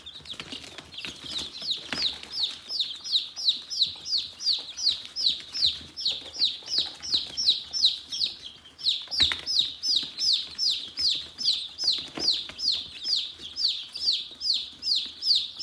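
A baby chick peeping loudly and without a break, a fast run of short falling-pitch peeps at about three or four a second. These are the distress peeps of a chick being held in the hand. A few soft knocks of handling come through underneath.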